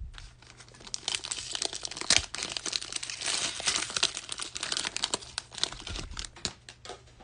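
Foil wrapper of an NBA Hoops trading card pack being torn open and crinkled by hand: a dense, rapid crackling that starts about a second in and thins out near the end.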